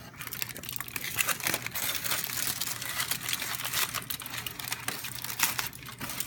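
Aluminium foil crinkling and crackling in irregular rustles as a foil wrap is pulled open by hand.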